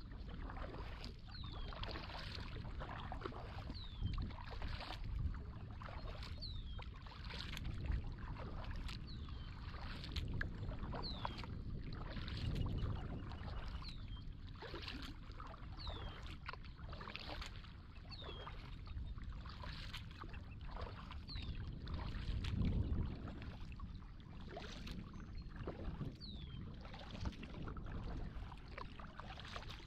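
Kayak being paddled: paddle blades dipping and water splashing and dripping in a steady rhythm over a low rumble. A short, high, falling squeak repeats about every two seconds, in time with the strokes.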